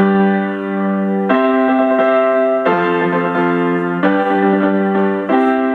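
Background piano music: sustained chords that change about every second and a half.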